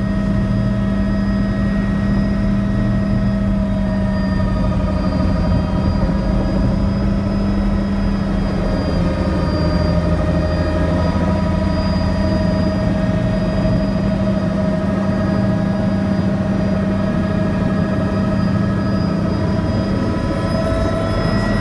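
Helicopter's turbine engine and rotor running steadily, heard from inside the cabin: a constant low hum with a high whine above it.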